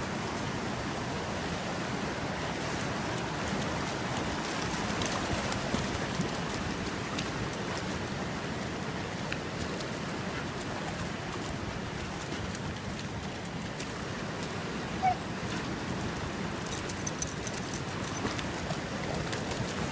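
Steady rush of a swollen creek's flowing water. A few short, sharp jingles near the end, from a wading dog's collar tags and leash.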